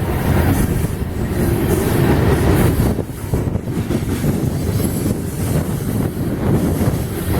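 Freight train rolling past, a steady rumble of locomotives and cars on the rails.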